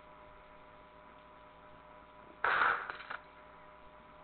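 A single loud blast, a shotgun sound effect, about two and a half seconds in, fading quickly, over a steady faint electrical hum and hiss.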